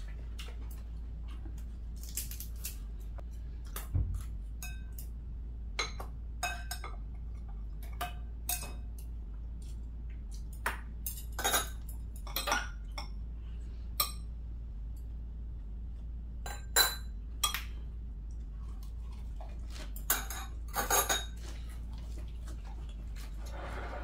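Chopsticks tapping and clinking against ceramic bowls, side-dish plates and containers: scattered, irregular sharp clicks, some in quick little clusters, over a low steady hum.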